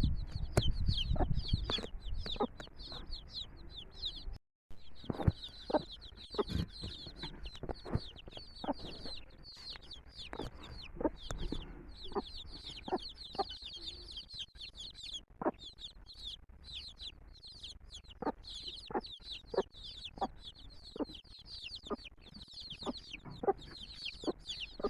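A brood of domestic chicks peeping continuously: many rapid, high, downward-sliding cheeps overlapping. Short sharp clucks or taps from the mother hen are mixed in.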